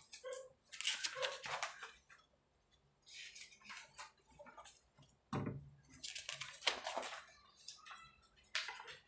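Sheets of paper rustling and being shuffled in several bursts of a second or so each, with a dull thump on the table about halfway through.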